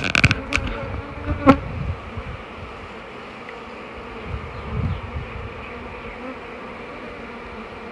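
Many honey bees buzzing in a steady hum around a wire-mesh trap-out cone at their nest entrance in a house column. A few sharp knocks come in the first second, and another about a second and a half in.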